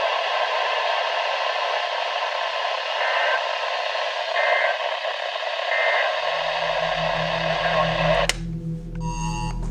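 Steady radio static hiss with three short beeps. A low hum comes in about six seconds in. Near the end a click cuts the static and a phone's two-tone emergency alert tone starts, sounding on and off in a pattern.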